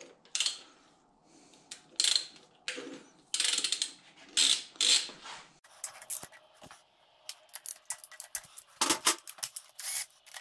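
Hand socket ratchet clicking in short bursts, undoing the 10 mm bolts that hold the fuel rail.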